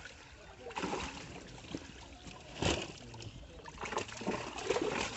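Water splashing and trickling, with a few sharper splashes; the loudest comes about two and a half seconds in, and more follow near the end.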